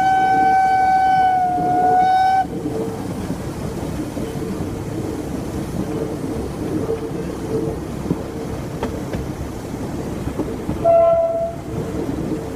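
Steam locomotive whistle sounding a long, steady blast that cuts off about two seconds in. After that comes the steady running noise of the train rolling on the rails, and near the end a second, short whistle blast.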